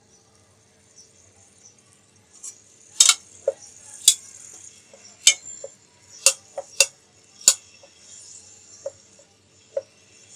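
A metal spatula clinks and scrapes against a metal frying pan while minced garlic is stirred in melted butter, over a faint sizzle. The sharp clinks start about three seconds in and come at irregular intervals.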